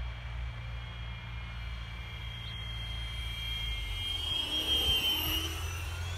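Radio-controlled Freewing A-10 jet making a low pass: the high whine of its twin 80 mm electric ducted fans and the Nerf whistles in its engine nacelles grows louder as it nears, peaks about five seconds in, and drops slightly in pitch as it goes by.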